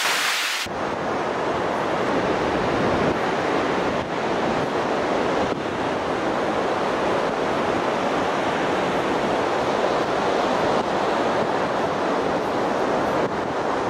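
Surf breaking on the beach with wind buffeting the microphone: a steady noise of wind and waves. A brighter hiss at the start cuts off under a second in.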